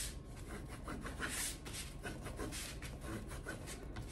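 Fabric being rubbed down along a turned seam with a bone-folder creasing tool, a string of short scraping strokes pressing the fold flat.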